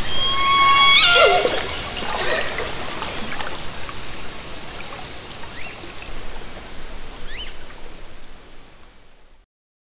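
Southern resident killer whale calls recorded underwater by hydrophone. A strong call with many harmonics holds one pitch, then breaks sharply about a second in. Fainter calls and a few short rising whistles follow over a steady water hiss, fading out near the end.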